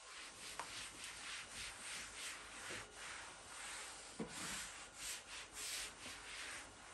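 Rhythmic scrubbing strokes on a hard surface, about two a second, with a light knock about four seconds in.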